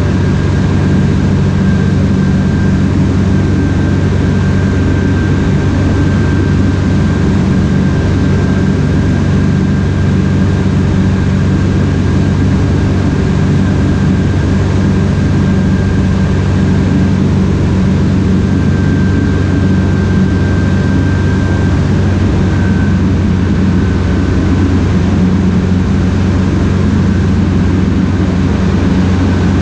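Ikarus C42 microlight's engine and propeller droning steadily in flight, heard from inside the cockpit with the rush of air around the cabin. A thin, steady high tone sits above the drone.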